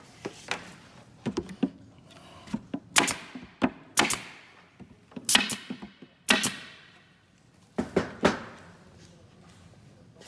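Wide crown stapler driving staples through angle brackets into the cabinet's face frame, floor and ceiling: a series of sharp shots, about six loud ones with smaller knocks between.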